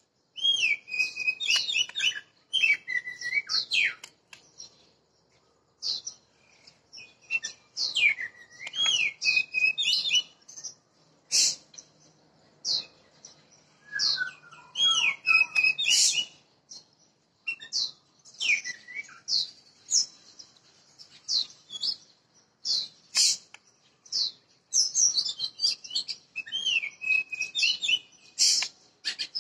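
Wild-caught Oriental magpie-robin singing: phrases of varied whistles and quick rising and falling notes, broken by short pauses.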